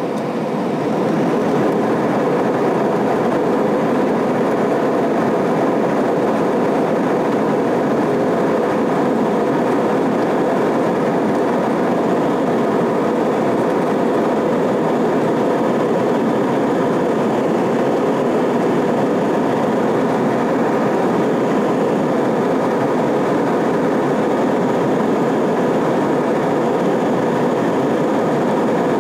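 Airbus A320 cabin noise on the takeoff roll: the jet engines come up to takeoff power in the first second or so, then a steady, loud rush of engine and runway noise.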